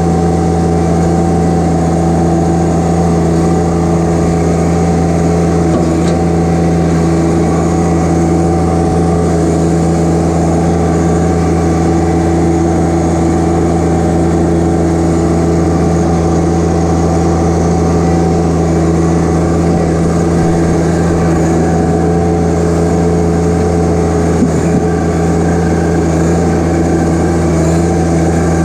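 John Deere 1025R compact tractor's three-cylinder diesel engine running at a steady speed as the tractor drives along, a constant loud drone with no change in pitch.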